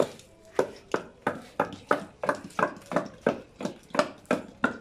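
Wooden pestle pounding cassava leaves in a wooden mortar: a steady run of dull thuds, about three a second.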